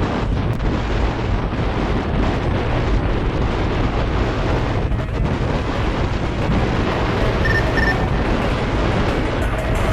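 Heavy wind buffeting the microphone as a Honda Dio 110 scooter is ridden at speed: a steady rumbling rush with no break. Two short high beeps sound near the end.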